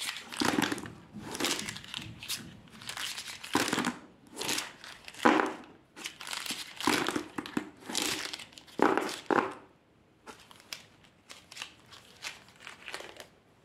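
A handful of plastic felt-tip sketch pens shuffled and rattled together in the hands, in a string of irregular clattering bursts. After about nine seconds it drops to fainter scattered clicks and taps.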